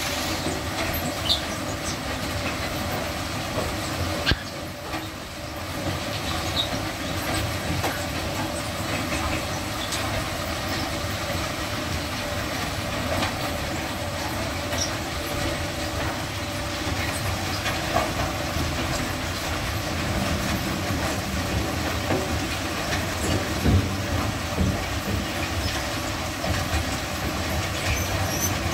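Wood-chip conveyor system ('Dachs') running steadily, with occasional sharp knocks, as wood chips tip from a forklift's bin into its hopper.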